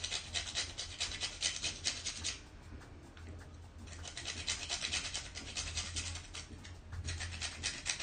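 Whole nutmeg being grated on a hand grater: quick rasping strokes, about five a second, that pause for a second and a half a little past two seconds in, then resume.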